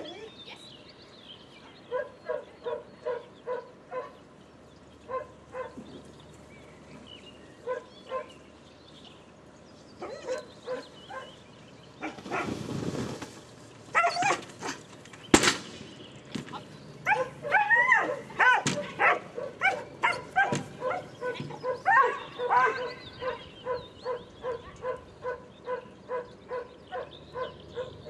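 A dog barking over and over in quick, evenly spaced runs of short barks, about two to three a second, more excited and varied in pitch in the second half. One sharp knock about halfway through is the loudest single sound.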